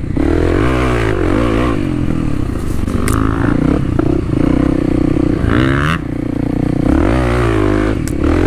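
Kawasaki KLX300's single-cylinder four-stroke engine being ridden on a dirt trail, the throttle opening and closing so the engine note rises and falls over and over. A couple of sharp knocks come about three seconds in and near the end.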